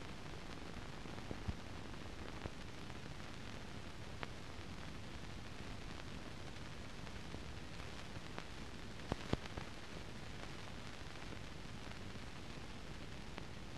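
Steady hiss with a few scattered clicks, the loudest pair about nine seconds in. This is the blank noise floor of a silent film transfer that has no soundtrack.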